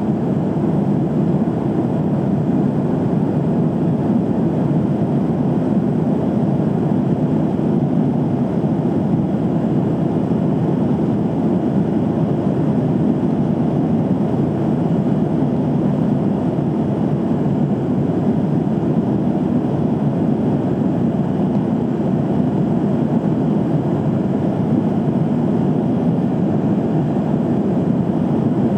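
Steady airliner cabin noise in flight: jet engine and airflow noise heard from inside the cabin, unchanging throughout.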